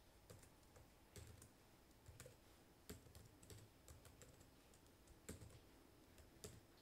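Faint typing on a computer keyboard: irregular key clicks.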